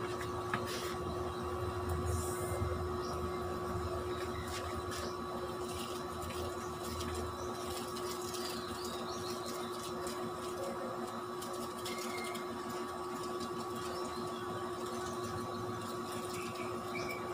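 A steady machine hum at a constant pitch runs throughout, with faint crinkling and rustling of aluminium foil as a fish is wrapped in it.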